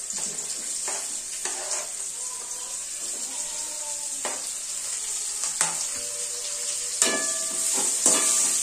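Sliced onions sizzling as they go into hot oil in an aluminium kadai, with short clicks and scrapes of a steel slotted spoon pushing them off a plastic cutting board. In the last second or two the spoon knocks and scrapes against the pan as the onions are stirred, the pan ringing briefly after each strike.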